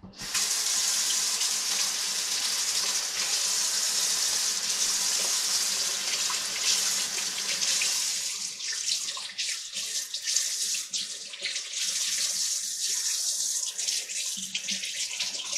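Kitchen faucet running into a stainless steel sink while celery stalks are rinsed under the stream, a steady rush of water. About halfway through the flow thins and turns into an uneven spatter as the water breaks over the celery.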